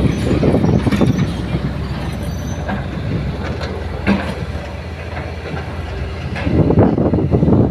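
Hydraulic excavator's diesel engine running steadily, with scattered metallic clanks and rattles from the machine at work; the engine grows louder about three-quarters of the way in.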